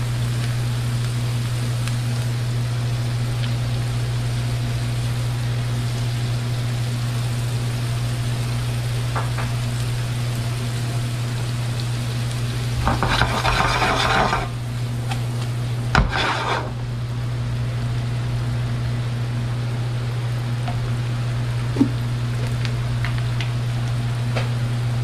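Diced onions and butter sizzling gently in a nonstick frying pan over a steady low hum, with a short stretch of spatula stirring about halfway through. A sharp knock comes a couple of seconds after the stirring.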